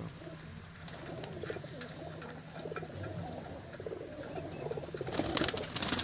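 Domestic pigeons cooing in a loft, a low murmuring coo going on and off, with a few sharp sounds of wings flapping near the end.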